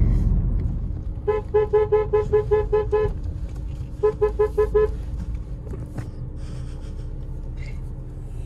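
Alfa Romeo car horn tapped in quick short toots, about five a second: a run of about nine, then after a one-second pause four more, over the low sound of the car's engine running.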